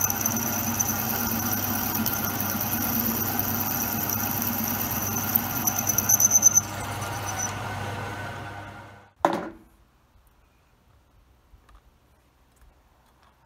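Drill press running, its bit cutting into a steel block with a steady hum and a high, pulsing squeal. About six and a half seconds in the squeal stops and the motor sound fades away over the next two seconds. A short sharp sound falling in pitch follows a little after.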